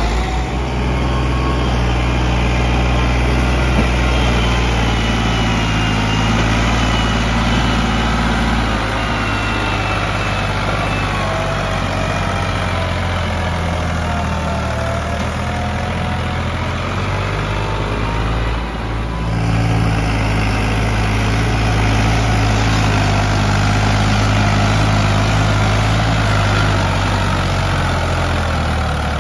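Diesel tractor engines running under heavy load, first a Massey Ferguson's, then a three-cylinder Ford's, as they pull a trolley piled high with sugarcane. The engine note stays steady, with a short dip about two-thirds of the way through.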